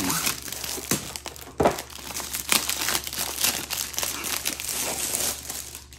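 Crinkling of a plastic-wrapped rolled canvas and a cardboard box being opened and handled, with a few sharp knocks, the loudest about one and a half seconds in.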